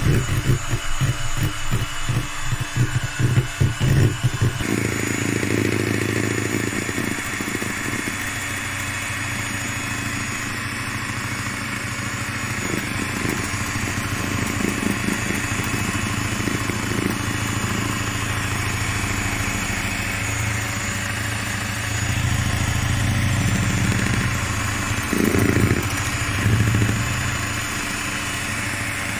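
Electric hand mixer running, its beaters whipping hot dissolved jelly into a pink foam in a plastic bowl. The sound pulses unevenly for the first few seconds, then settles into a steady hum.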